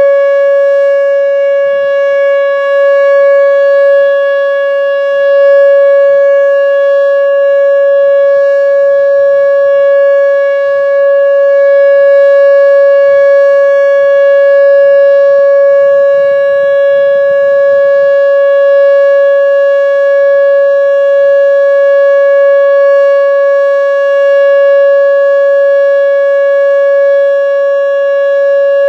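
Whelen WPS-2910 electronic warning siren sounding its steady Alert signal during a system test: one loud held tone with a stack of overtones, no rise or fall in pitch.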